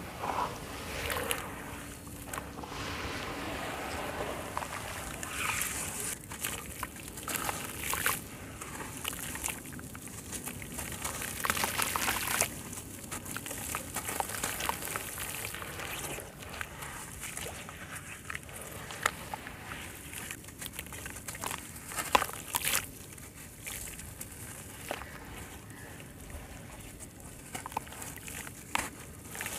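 Hands sloshing through a tub of muddy water and squeezing wet sand-cement chunks, the gritty crumbs trickling and splashing back into the water in irregular crackles and splashes.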